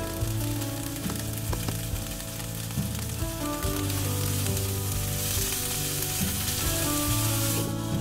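Chicken tenders sizzling in hot oil in a frying pan, turned over partway through, the sizzle growing louder in the second half. It drops suddenly just before the end as a glass lid goes on the pan.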